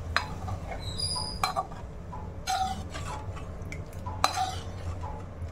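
A perforated steel skimmer stirring a watery curry in a stainless-steel kadai, with a few sharp metal clinks as it strikes the pan's sides.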